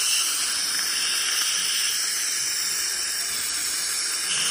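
Steady, even hiss of dental cleaning equipment during the scaling of tartar-coated lower front teeth.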